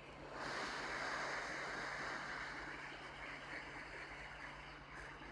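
Hot air rework station blowing on a phone logic board to reheat the baseband chip: a steady airy hiss that comes in about half a second in and slowly eases off, over a low steady hum.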